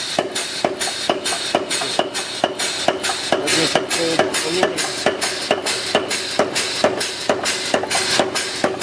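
Big Blu Mark 3 pneumatic air hammer, 110 lb ram on a 700 lb anvil, pounding a workpiece on the anvil. The blows come in a steady run of about four a second.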